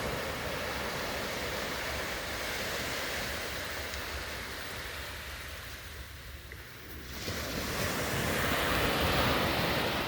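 Sea waves breaking and washing on the shore, with wind rumbling on the microphone. The surf eases off about two-thirds of the way through, then another wave swells in and breaks louder near the end.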